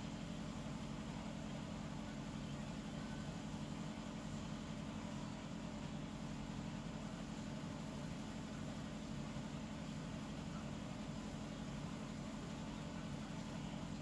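Steady low hum with a faint hiss, even and unchanging, with no snoring breaths standing out.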